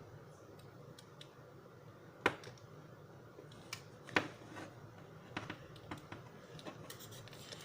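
Small plastic clicks and taps as a snap-on plastic claw piece is pushed onto an action figure, with two sharper clicks about two and four seconds in.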